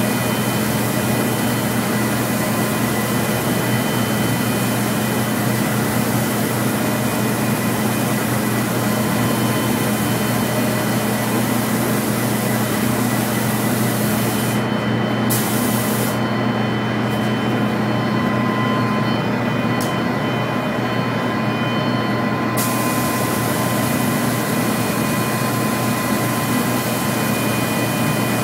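A steady, loud hiss with a low machine hum under it, unchanging throughout.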